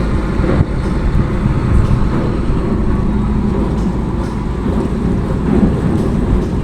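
Heavy truck running, a steady low rumble with road traffic noise.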